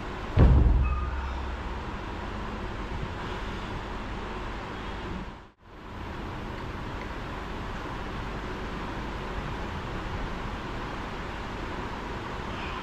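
A pair of dumbbells set down on the gym floor with a heavy thud and a short metallic ring about half a second in. A steady background hiss runs under it, cut off briefly a little past the middle.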